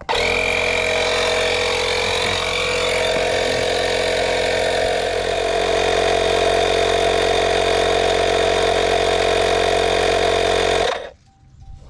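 Small portable tyre inflator compressor running steadily, pumping up a plugged tyre toward a set 39 PSI. It stops abruptly about eleven seconds in.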